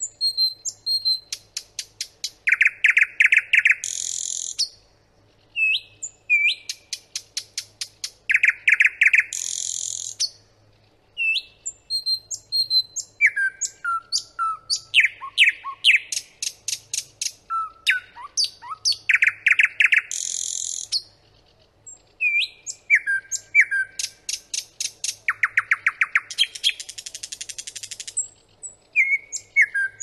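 Nightingale singing. Phrases of clear whistled notes alternate with fast rattling runs of repeated notes and buzzy trills, with short pauses between phrases.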